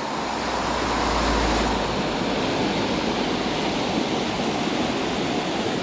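Steady rush of river water rippling over rocks. A low rumble sits under it for the first two seconds.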